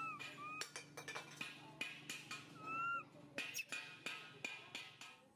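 Infant long-tailed macaque giving high, whistle-like coo calls that rise and fall in pitch, three of them, with many short, sharp sounds between. These are contact calls of a baby monkey calling for its mother.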